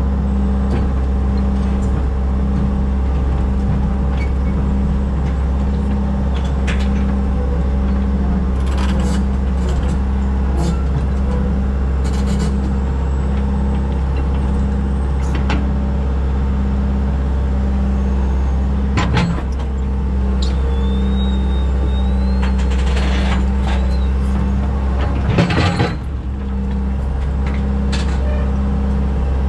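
John Deere 120 excavator's diesel engine running steadily, heard from inside the cab, with a low hum pulsing about once a second. A few short knocks come through as the boom and bucket work, two louder ones in the second half.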